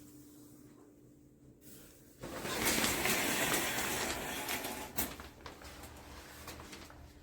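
Water spraying from a shower head, starting about two seconds in and running for about three seconds, then cut off with a click and tailing off.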